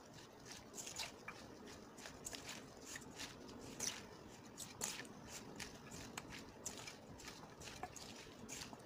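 Gloved hands tossing julienned radish and cucumber with chili flakes in a stainless steel bowl: faint, irregular wet squishing and crackling with scattered light clicks.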